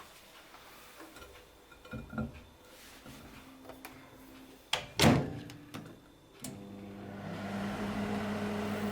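Light knocks from a plate going into a 715-watt microwave oven, then the door shut with a loud thud about five seconds in. About a second later the oven starts cooking and runs with a steady hum.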